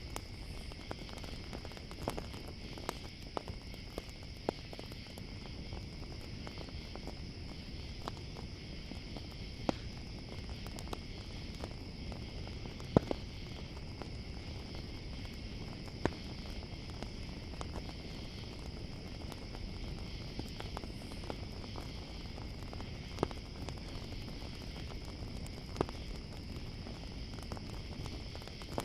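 Campfire crackling, with sharp pops scattered through it and one louder snap about halfway through, over a steady chorus of crickets.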